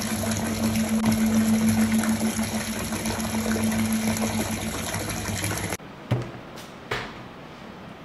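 Bathwater fizzing and bubbling as a bath bomb dissolves, a dense crackle of bursting bubbles over a steady low hum. It stops abruptly about six seconds in, leaving a quieter stretch with a soft thump and a click.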